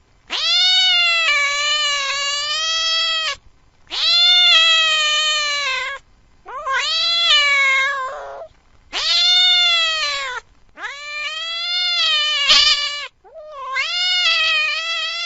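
A domestic cat yowling in long drawn-out wails, six in a row with short gaps, each bending up and down in pitch. It is the fierce, threatened yowl of a frightened cat.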